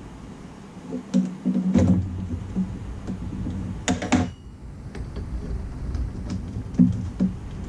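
Metal clicks and clacks of a 10 mm wrench and a battery terminal clamp as a battery cable is loosened and pulled off, with a sharp cluster of clicks about four seconds in. A low steady hum starts about two seconds in.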